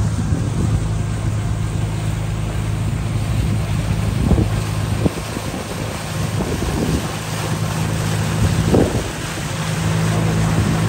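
Motorboat engine running steadily with a low drone, wind buffeting the microphone, and a few short knocks about four, five and nine seconds in.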